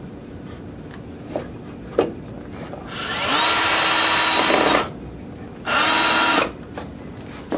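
Power drill driving screws into a wooden board. A run of nearly two seconds spins up in pitch and holds steady, then a shorter burst follows after a brief pause. Two light clicks come before the drilling.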